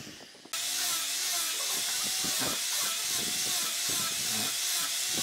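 A steady hiss that cuts in abruptly about half a second in, with faint wavering tones underneath.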